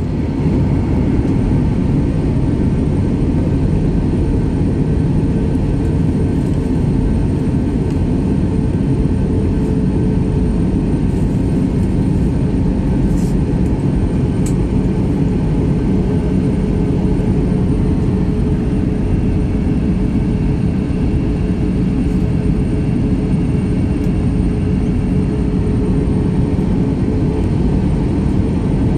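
Steady drone of a turbofan airliner's cabin in flight: engine and airflow noise, heavy in the low range, with a faint steady hum running through it.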